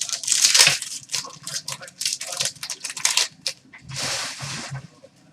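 Trading cards being handled: a run of quick sliding and flicking noises as cards are shuffled past one another, with a longer brushing rustle about four seconds in.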